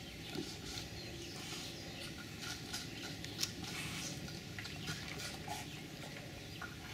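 Black bear cubs eating from a tub of greens and soft fruit: irregular wet smacking and small crunching clicks of chewing, with the sharpest click about three and a half seconds in.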